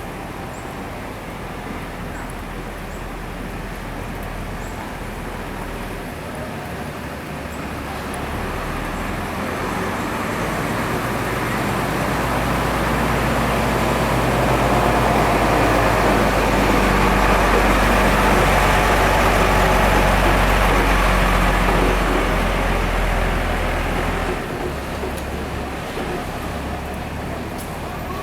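Road traffic, with a large vehicle's engine growing louder over several seconds, loudest about two-thirds of the way in, then fading away.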